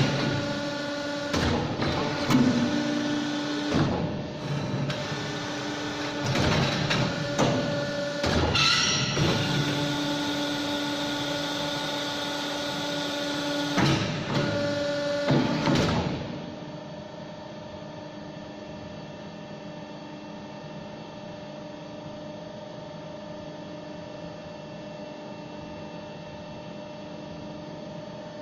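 CNC pipe bending machine running: a steady motor hum with a held tone, broken by clanks and knocks every few seconds. About halfway through, the clanking stops and a quieter, steady machine hum carries on.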